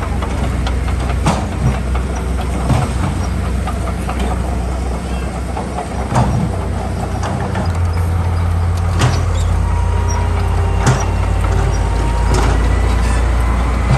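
Heavy diesel earthmoving machinery running steadily under load, with scattered metallic clanks and knocks. The engine drone grows louder about halfway through.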